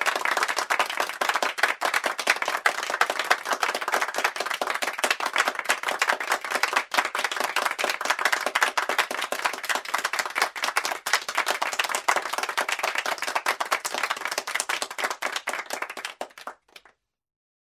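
A group of people clapping: dense, steady applause that cuts off suddenly near the end.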